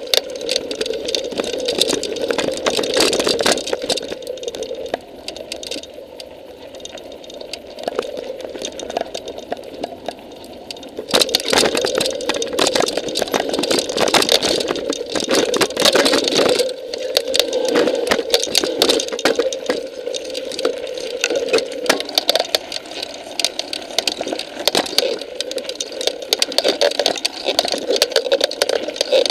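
Mountain bike rattling and crunching along a rough, rocky dirt trail, heard from the camera rider's own bike: a steady clatter of tyres, chain and frame. It is quieter for several seconds, then rougher and louder for a stretch a little after the middle.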